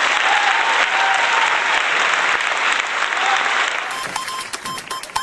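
Audience applause that thins out about four seconds in, as a regular series of short electronic beeps starts.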